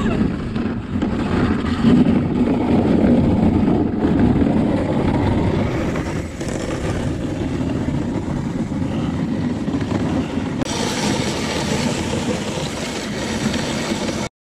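Dog sled runners sliding over packed snow, a steady rushing scrape mixed with wind on the camera microphone, turning brighter and hissier about three-quarters of the way through before cutting off abruptly.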